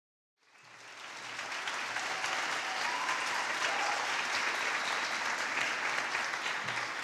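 Audience applauding, a dense steady clapping that swells in over the first second.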